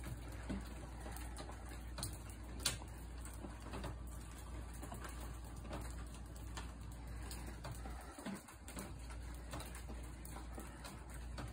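Faint bird calls, with a low steady hum and a few light ticks underneath.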